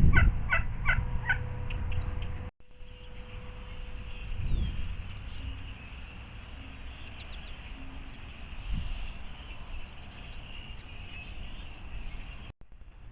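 A wild turkey gobbling: a quick rattling run of notes in the first second or so. After a break, faint high chirps of small birds can be heard over a steady outdoor background.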